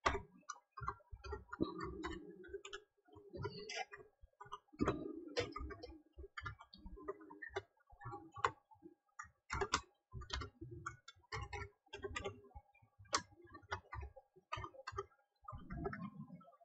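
Typing on a computer keyboard: irregular runs of short, faint key clicks as a long password is typed in twice.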